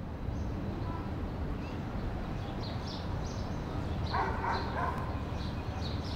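Steady outdoor background ambience with small birds chirping on and off, and a brief, louder animal cry about four seconds in.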